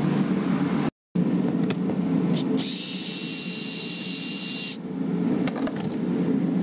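Power drill with a socket extension runs for about two seconds with a high whine, backing out a bolt from the ATV's underside skid plate. A steady low hum lies under it, and there are a few clicks near the end.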